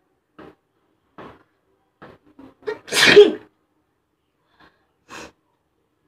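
A woman sneezes once, loudly, about three seconds in: a deliberately provoked sneeze. Before it come a run of short breaths that draw closer together as the sneeze builds. A shorter breath follows near the end.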